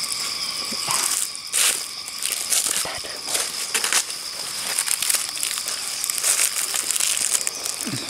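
Dry fallen leaves crunching and crackling under irregular footsteps and handling, over a steady high insect drone.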